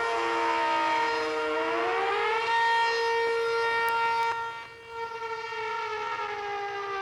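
More than one Century electromechanical tornado siren sounding together, one winding up in pitch about two seconds in to join a steady tone. The sound fades sharply for a moment about five seconds in. Near the end the pitch starts to wind slowly down.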